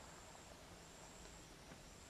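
Near silence in the open air, with a faint, high insect trill that runs in stretches of about a second with short breaks between.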